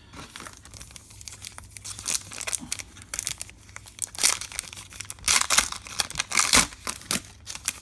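Foil wrapper of a Topps Chrome trading-card pack being crinkled and torn open by hand, in irregular crackling tears, the loudest in the second half.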